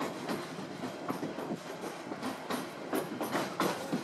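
Narrow-gauge passenger train running along the track, heard from an open car: a steady rumble with irregular clacking and rattling from the wheels and car, several clacks a second, getting busier toward the end.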